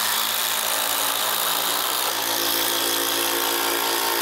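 Two DeWalt 20V brushless impact drivers, the DCF850 Atomic and the DCF887, hammering 1/4 by 6 inch structural screws into lumber with a steady, rapid rattle of impacts. One finishes partway through while the other keeps hammering.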